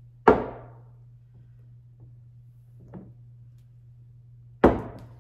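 Glass vases set down on a wooden tabletop: two loud knocks about four seconds apart, each dying away quickly, with a fainter knock between them.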